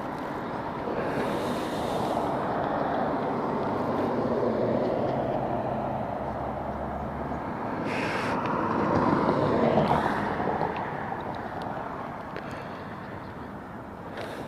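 Wind rush on the microphone and tyre noise from riding a HappyRun F18 electric motorbike on knobby tyres. Passing traffic swells up twice, loudest about nine to ten seconds in.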